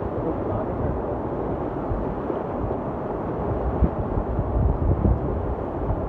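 River rapids rushing, a steady noise of churning whitewater around the raft, with wind buffeting the microphone, strongest about four to five seconds in.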